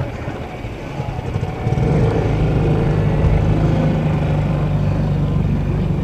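A small sailboat's motor running with a steady low hum, growing louder about a second and a half in and then holding steady.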